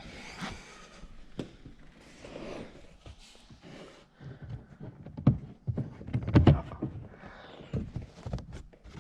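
Irregular knocks, clicks and rubbing from car interior parts and tools being handled and fitted, with a cluster of heavier knocks about five to seven seconds in.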